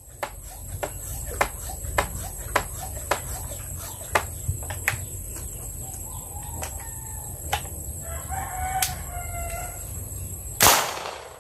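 A rooster crows a little past the middle, and near the end a homemade alcohol-powered marble gun fires once with a loud crack. Light clicks are scattered throughout.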